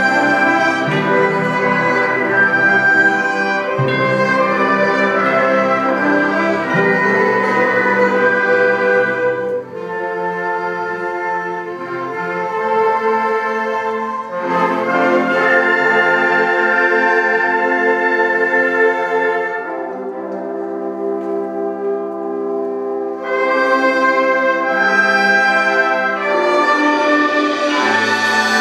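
A high-school concert band playing, brass and woodwinds in full held chords. The music eases to quieter passages about ten seconds in and again about twenty seconds in, then swells back.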